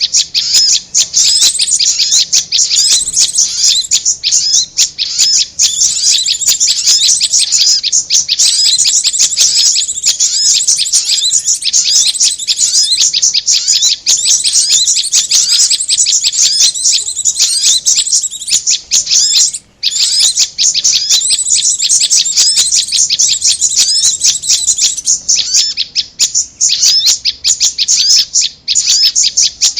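Bird-lure recording of korlap and prenjak (prinia) calls: dense, rapid, high-pitched chirping that runs almost without a break, with one short gap a little before twenty seconds in.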